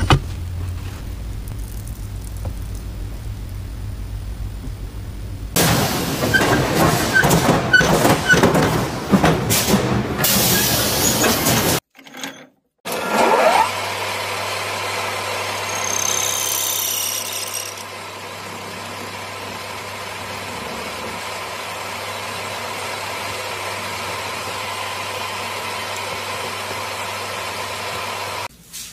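Workshop machine sounds from several cuts: a steady low noise, then several seconds of loud, dense clattering, then after a short break a lathe starts with a rising whine and runs with a steady hum as a rod is pressed against its spinning disc and heated red hot by friction, with a brief high falling squeal early in the run.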